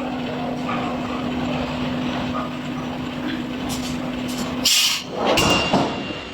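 Heavy industrial machinery running with a steady hum. About three-quarters of the way through comes a short sharp hiss, then a louder rushing burst.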